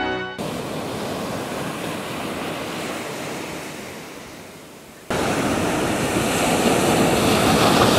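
A steady outdoor noise that slowly fades, then, cutting in sharply about five seconds in, ocean surf breaking and rushing up a beach, loud and steady, with some wind on the microphone.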